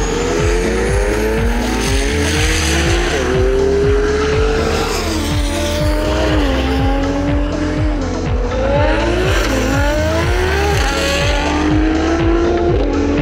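A high-performance car engine accelerating hard, its pitch climbing and dropping back at each upshift several times, over music with a steady beat.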